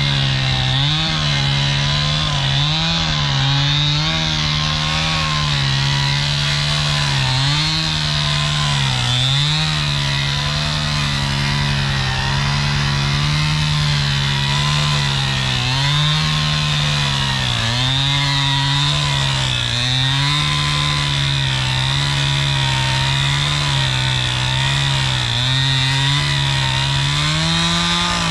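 Two-stroke chainsaw at full throttle cutting through a log, its engine note sagging and recovering again and again as the chain bites under load. The engine drops off sharply at the very end.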